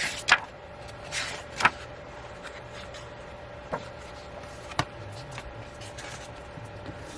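Album packaging and photocards being handled: a few short paper rustles and taps, with the denser ones in the first two seconds, over a faint steady hum.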